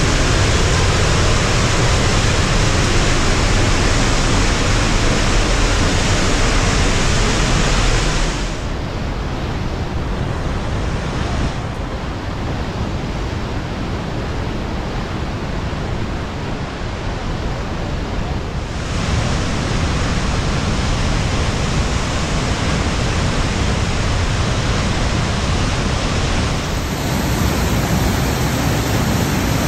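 Steady, loud rush of a large waterfall and whitewater rapids heard close up. The sound drops to a quieter, thinner rush for about ten seconds in the middle, then returns to full strength.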